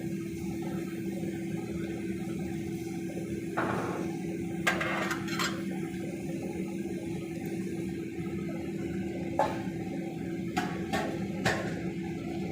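A cooking utensil knocks and scrapes against a pan about half a dozen times as paneer cubes are stirred into spinach gravy, over a steady low hum.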